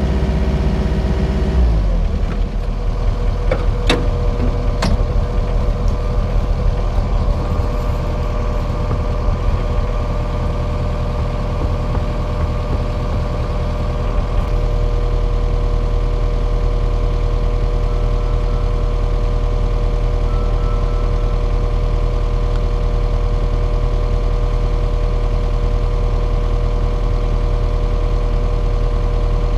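Excavator engine running steadily. Its note shifts about two seconds in, two sharp clicks come a couple of seconds later, and from then on it runs at an even, steady pitch.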